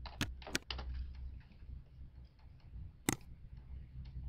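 A few sharp clicks from a computer's keys and mouse buttons: three close together just after the start and one more about three seconds in, over a low steady hum.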